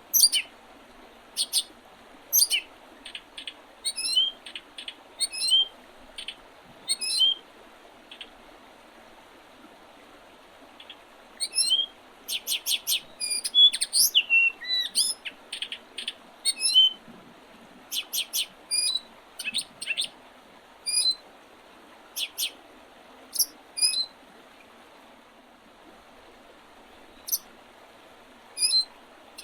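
Wild songbirds calling in spring, many short, sharp chirps and quick pitch-sweeping notes in clusters, with quieter gaps about a third of the way in and again near the end. A steady faint hiss lies underneath.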